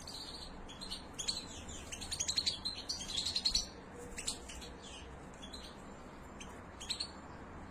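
Young European goldfinches calling: a quick run of high chirps starting about a second in and densest between about two and three and a half seconds, then scattered single chirps.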